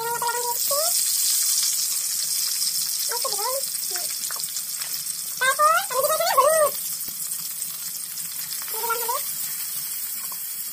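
Pointed gourd slices sizzling steadily in hot oil in an iron kadai, a constant hiss. Over it, four short groups of high, wavering cries, loudest a little past the middle.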